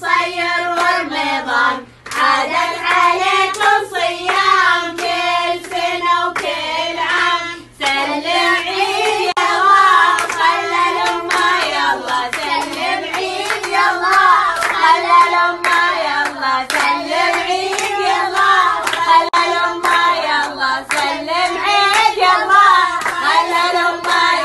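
Voices singing a traditional Gulf Qarqee'an song together, over steady rhythmic handclaps. The singing breaks off briefly about two seconds in and again near eight seconds.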